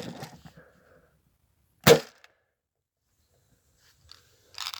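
A single sharp BB gun shot about two seconds in, with a faint click at the start and a short rustling noise near the end.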